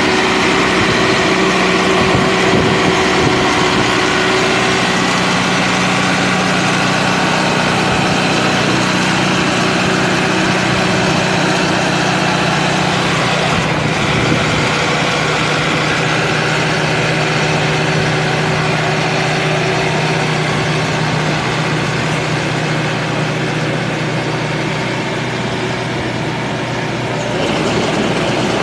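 Massey Ferguson 2635 tractor's diesel engine running steadily under load, driving a rear-mounted rotary tiller working the soil.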